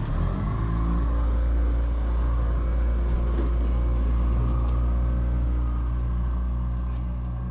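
Twin 150-horsepower Yamaha outboard motors running at slow trolling speed, a steady low engine hum.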